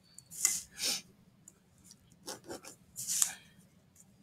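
Pencil being drawn along a steel ruler on paper, with the ruler shifted across the sheet: four short rubbing strokes in two pairs, the pairs about two seconds apart.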